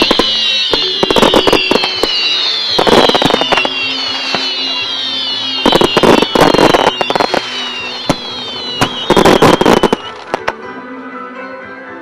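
Fireworks display: clusters of bangs and crackling bursts come every few seconds, with many overlapping whistling fireworks that fall in pitch. The whistles stop about ten seconds in and the display goes quieter. Music plays under it for the show.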